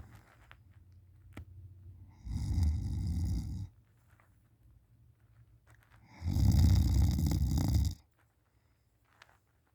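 A person snoring in deep sleep: two loud snores, each about a second and a half long, roughly four seconds apart, with quiet breathing between.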